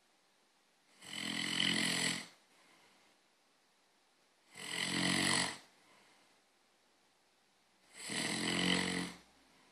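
Someone snoring in slow, regular breaths: three long snores about three and a half seconds apart, each lasting about a second.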